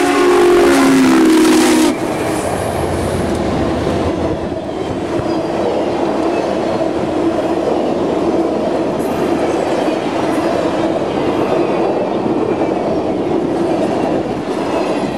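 Southern Pacific 4449's chime whistle sounds a loud chord as the 4-8-4 steam locomotive passes, dropping slightly in pitch and cutting off sharply about two seconds in. After that comes the steady rumble and clatter of the passenger cars rolling past on the rails.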